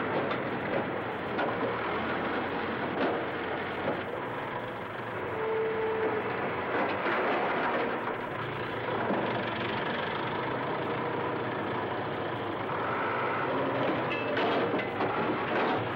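Diesel engine of a backhoe running steadily under load as its hydraulic arm crushes and tears a PCC streetcar's body, with scattered cracks and crunches of breaking metal and glass.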